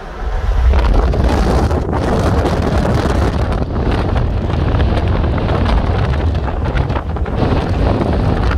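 Wind buffeting the microphone: a loud, uneven rumble with a rushing hiss over it, coming up sharply about half a second in.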